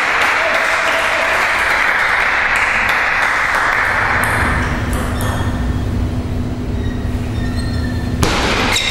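Steady rushing background noise that gives way to a low rumble about halfway through. Near the end comes one sharp click of a table-tennis ball struck on a serve.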